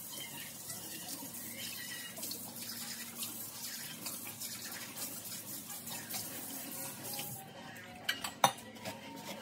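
Water running steadily, likely a kitchen tap, cutting off abruptly about seven seconds in, followed by a couple of sharp knocks.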